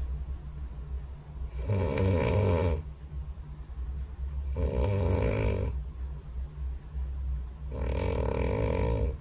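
A person snoring: three loud snores about three seconds apart, each lasting about a second, over a steady low hum.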